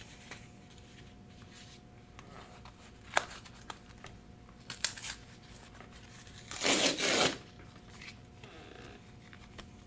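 Cardboard mailer being handled, with a few light clicks and rustles, then its tear strip ripped open in one loud tear lasting under a second, about seven seconds in.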